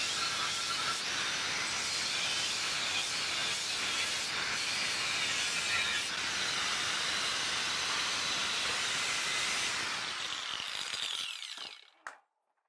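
Corded power tool cutting through the steel wall of an old water-filled gas bottle to take its top off: a steady hissing grind that dies away about eleven seconds in, followed by a single short click.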